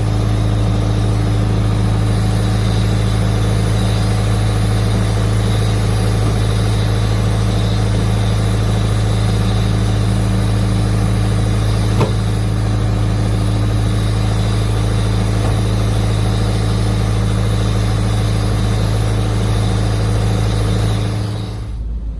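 Engine running at a steady speed: a constant low hum with even overtones, a single click about halfway through, easing off near the end.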